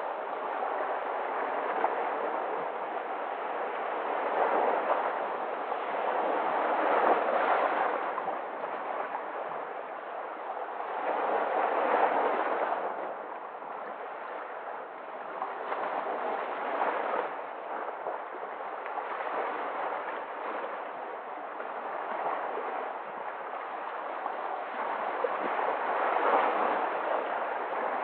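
Sea waves breaking and washing among shoreline rocks, the surf swelling and easing every few seconds.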